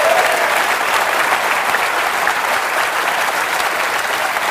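A large audience applauding steadily in a hall, easing off slightly toward the end.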